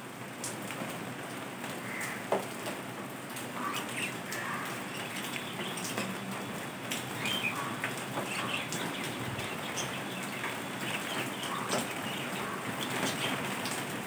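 Budgies giving short, scattered chirps over a steady hiss, with a few light clicks, and a flutter of wings near the end as one takes off.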